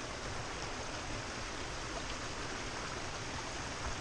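Small hot-spring creek rushing steadily over rocks, with a low uneven rumble underneath.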